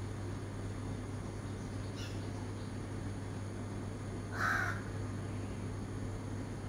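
A crow calls once, loud and about half a second long, about four and a half seconds in, as part of a dawn chorus. Faint high chirps of small birds come earlier, over a steady low hum.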